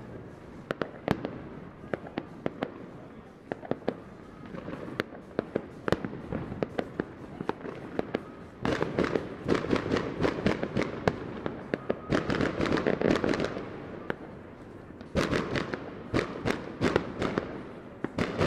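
Fireworks and firecrackers going off all around: scattered sharp bangs throughout, with three stretches of rapid crackling, the first starting about nine seconds in.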